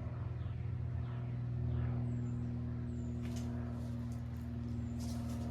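Honda CJ360's parallel-twin engine idling steadily with both cylinders firing, swelling slightly about two seconds in.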